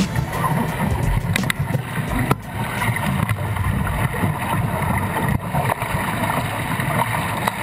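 Water rushing and splashing along the hull of a Nacra 20 racing catamaran under sail, over a low rumble of wind on the microphone. A few sharp splashes come in the first couple of seconds.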